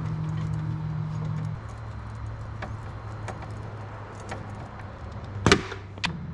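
Small metallic clicks and clinks of a screwdriver and stiff wire being worked in a steel electrical box, with a sharp knock about five and a half seconds in and a smaller one just after. A low steady hum runs under the first second and a half, then stops.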